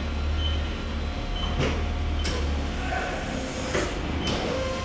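Mori Seiki Duraturn 2050 CNC lathe being jogged by hand: the axis drives whine briefly as the slides move, with several clunks and a few short high beeps over a steady low machine hum.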